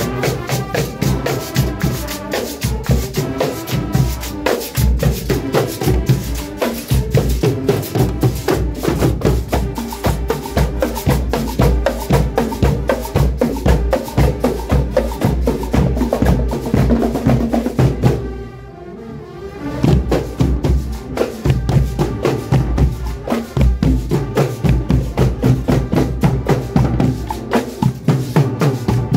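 A marching band playing a cumbia on trumpets, saxophones and sousaphone over bass drum and snare drums, with a fast, steady percussion beat. The sound dips briefly about two-thirds of the way through.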